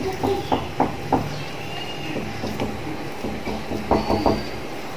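Soft, irregular pats and knocks of hands pressing and shaping a moist potato-masala mixture around a boiled egg. There are a few in the first second and a quick cluster about four seconds in, over a low steady hum.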